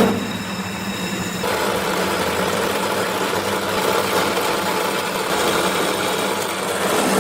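Shop machinery running with a steady hum. About a second and a half in, a louder, rougher noise joins it and carries on.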